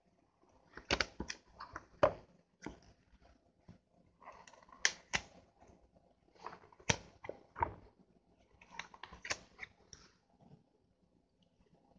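Pages of a printed book being turned by hand: crisp paper flips and rustles in four short bursts, a couple of seconds apart.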